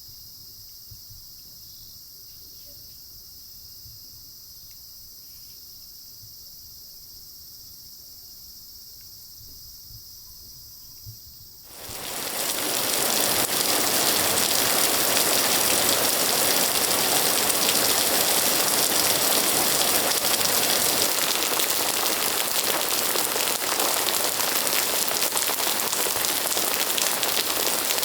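Faint, steady trilling of insects, which gives way abruptly about twelve seconds in to loud, heavy rain pouring down: a sudden summer cloudburst.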